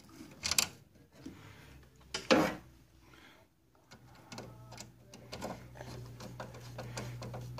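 The retaining screw of a DLP TV lamp assembly being put back and driven in: a couple of louder knocks, then a run of small clicks and ticks over a low steady hum.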